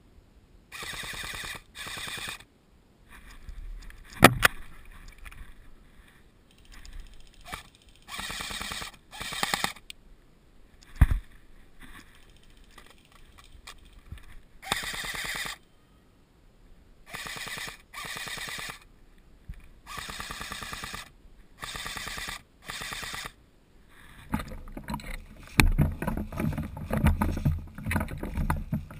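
Airsoft rifles firing short full-auto bursts, each a rapid string of clicks lasting about half a second to a second, about ten bursts in all, with two sharp single knocks in between. Near the end a louder, rough rumbling rustle takes over.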